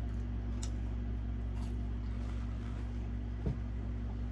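Steady low hum with a faint higher steady tone above it, and one short knock about three and a half seconds in.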